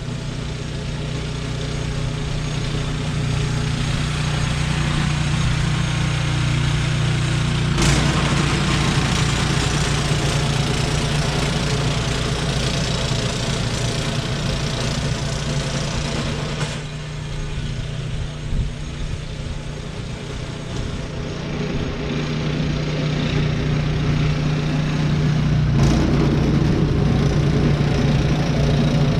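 A motor vehicle's engine running with a steady low hum under a wash of road and cabin noise, heard from inside the vehicle. The noise steps up sharply about a third of the way in, eases off around the middle, and builds again near the end.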